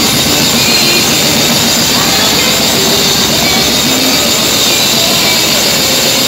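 Loud live dance music in a packed club, heard through a phone microphone. It is taken over by a dense, steady wash of noise with faint tones underneath, which starts and stops abruptly.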